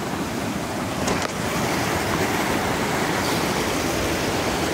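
Mountain creek rushing steadily over rocks, a continuous wash of moving water.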